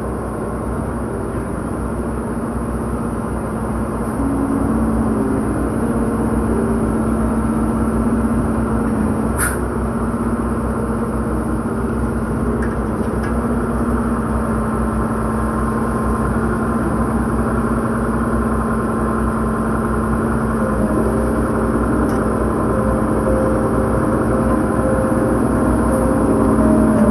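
Concrete pump truck's engine running steadily under load, with a constant high whine over it and a single sharp click about nine seconds in.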